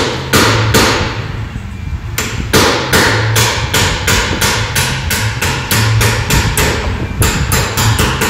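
Hammer blows on a steel pin punch, driving a hinge pin out of a Holden VC Commodore door. A few strikes, a pause of about a second, then a steady run of about three ringing blows a second.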